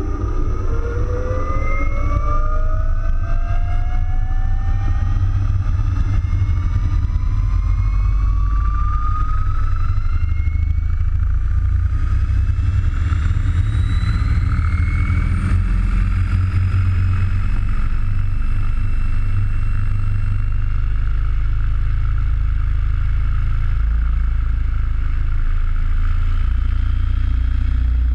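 Align T-Rex 800E electric RC helicopter spooling up. The motor and rotor whine rises in pitch over roughly the first ten seconds, then holds steady at speed. A heavy low rumble of rotor downwash runs underneath.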